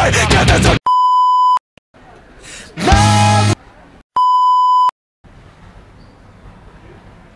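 Music cuts off, then a steady TV test-card tone sounds twice, each beep under a second long, with a short loud sound between them. After that only faint room tone remains.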